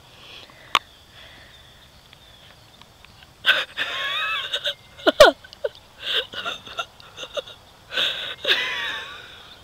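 Stifled, wheezing human laughter in irregular bursts, starting about three and a half seconds in. A single sharp click comes just under a second in.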